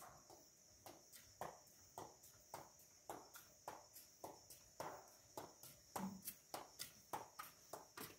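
Footsteps on a concrete walkway, about two a second, getting louder as the walker comes closer, over the steady high chirring of crickets.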